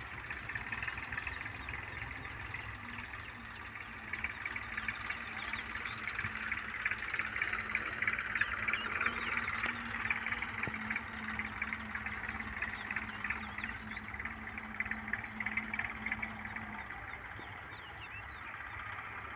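Many small birds chirping over the low, steady hum of a distant Massey Ferguson 1035 DI tractor's three-cylinder diesel engine idling.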